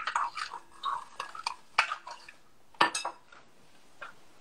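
Spoon stirring a thick oat, chia seed and butter mixture in a bowl, clinking and scraping against the bowl in uneven strokes. The last loud clink comes about three seconds in, then it goes quiet.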